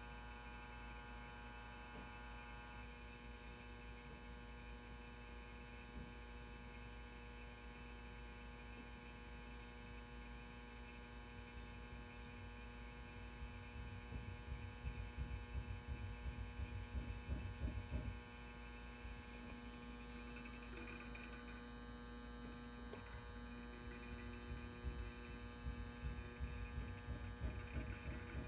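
Steady electrical hum, a stack of steady tones, from a 400 W probe-start metal halide lamp and its M59 magnetic ballast while the lamp warms up toward full brightness. A fluttering low rumble swells twice, in the middle and again near the end.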